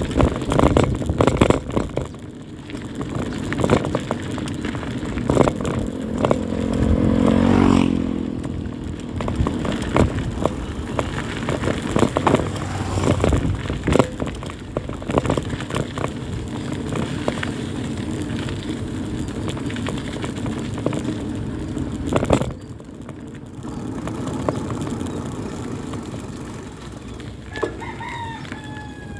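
Rattling and wind noise from a bicycle ride over a rough concrete and gravel road, picked up by a phone mic. A pitched hum swells and stops suddenly about eight seconds in, and a rooster crows near the end.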